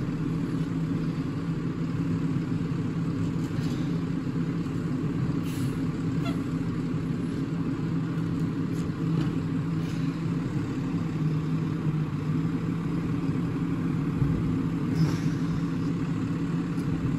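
Automated side-loader Peterbilt garbage truck running steadily, a constant low engine drone.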